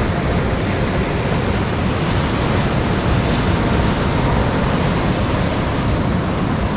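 Steady rushing noise of ocean surf on the beach, even and unbroken.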